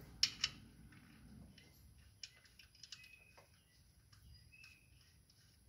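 Small clicks and taps as a hand works the drain plug on a Kubota tractor's engine oil pan, with two sharper clicks just after the start and scattered lighter ticks after.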